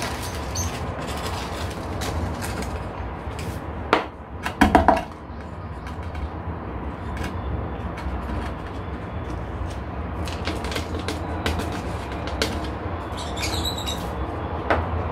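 Potting substrate being poured from a plastic scoop into a small terracotta pot and pressed in by gloved hands, with a few knocks and scrapes, the loudest two about four and five seconds in, over a steady low hum.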